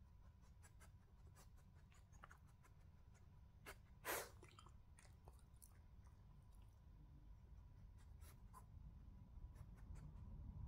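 A small dog chewing and licking at a treat: faint, scattered mouth clicks, with one brief louder burst of noise about four seconds in.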